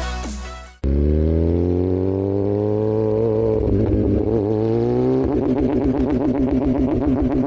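Motorcycle engine and exhaust whose pitch climbs steadily for a couple of seconds, wavers, then settles into a steady pulsing run.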